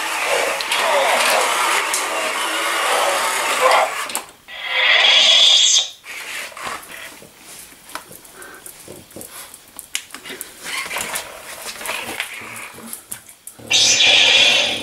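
Spin Master Legendary Yoda toy playing its electronic voice and lightsaber sound effects, with a French bulldog snorting and growling as it play-fights the toy. Two loud hissing bursts stand out, one about five seconds in and one near the end, with a quieter stretch of snorts and small clicks between them.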